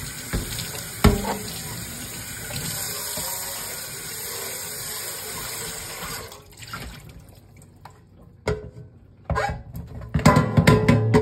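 Tap water running into a stainless steel sink while an air fryer basket is rinsed under it, with a knock about a second in. The water stops about six seconds in, and a few knocks and clatters follow as the basket is handled in the sink.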